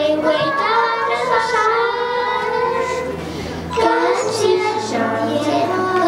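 Children's voices singing a Chinese song of thanks, in Mandarin, over a musical accompaniment, with a short dip a little after three seconds before the singing picks up again.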